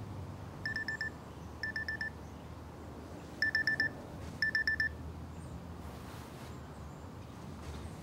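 Samsung Gear S3 frontier smartwatch alarm going off: four short bursts of rapid high beeps in two pairs, then it stops.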